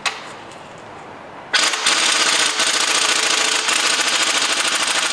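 Air impact gun rattling as it hammers a crankshaft pulley bolt tight, starting about a second and a half in and running steadily for over three seconds before it stops abruptly.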